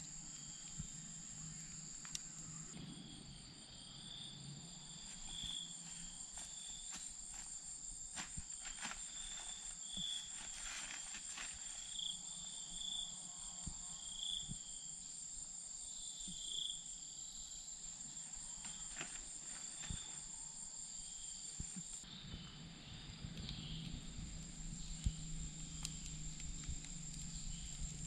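Insects buzzing steadily at a high pitch, with short chirps repeating through the first half and scattered faint crackles from a wood campfire.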